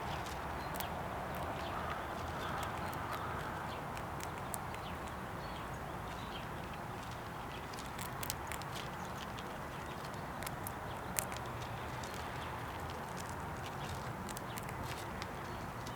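Irregular sharp clicks and taps, with one louder click about two-thirds of the way through: a squirrel cracking peanut shells and scrabbling in a bird house feeder. A steady background hiss underlies them.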